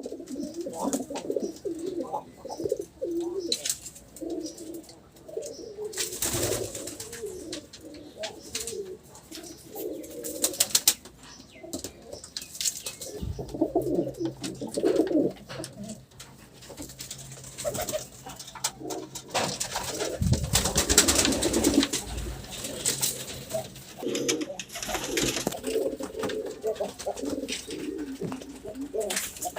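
Pigeons cooing continuously, the low throaty calls overlapping one another. Sharp clicks and clatters break in a few times, with a quick run of them about ten seconds in, and a steady low hum sits under the middle of the stretch.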